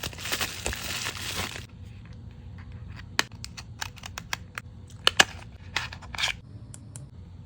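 Makeup packaging being torn open and crinkled for about the first second and a half, then scattered light taps and clicks from handling the packaging, with two sharp clicks close together about five seconds in and a brief scrape just after six seconds.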